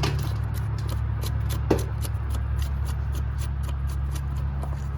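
Small metallic clicks, a few a second, as a bolt holding a wiper motor is tightened by hand tool, with one sharper click a little under two seconds in, over a steady low rumble.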